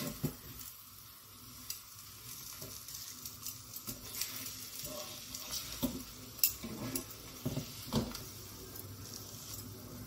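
Puran poli sizzling in ghee on a hot iron tawa as it roasts, with a steady hiss. A metal spatula clicks and scrapes against the pan several times.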